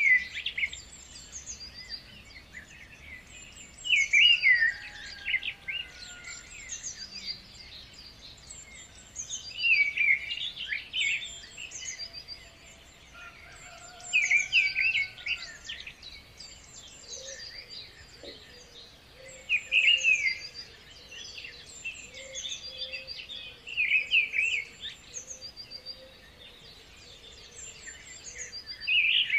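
Birds singing: bursts of chirping song about every four to five seconds, with thinner high-pitched notes repeating in between.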